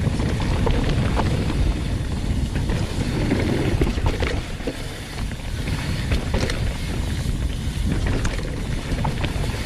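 Wind buffeting an action camera's microphone on a hardtail mountain bike descending a dry, loamy dirt trail, with steady rough tyre rumble and many scattered clicks and rattles from the bike over the terrain.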